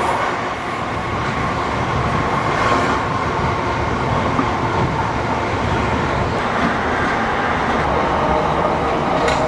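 Steady running noise of a passenger train heard from inside the carriage: a continuous rumble of the train moving along the track.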